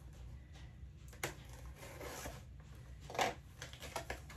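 Faint rustling and handling of a mailing package as it is opened, with a few short sharp taps or clicks, the loudest about three seconds in.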